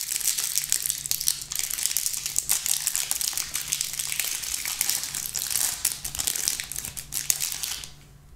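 Clear plastic wrapper on a pack of trading cards being torn open and crumpled by hand: dense, continuous crinkling and crackling that fades out near the end.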